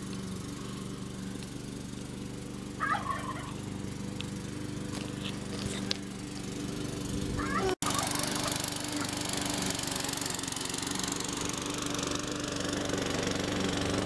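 Walk-behind gasoline lawn mower engine running steadily with an even hum. It gets a little louder from about eight seconds in.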